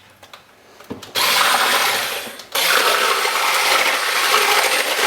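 Electric hand mixer whisking pancake batter in a bowl. It starts about a second in, stops briefly at about two and a half seconds, then runs again.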